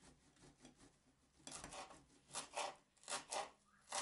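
Faint scraping strokes of hand food preparation at the counter, coming in short bursts, several in pairs, from about a second and a half in.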